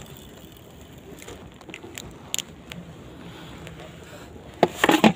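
Small caught fish being handled with a plastic fish gripper on rocks: scattered light clicks, then a short burst of loud knocking and clattering near the end.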